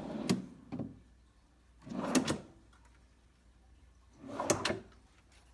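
Wooden nightstand drawer being slid open and shut: three short sliding strokes with a knock, about two seconds apart.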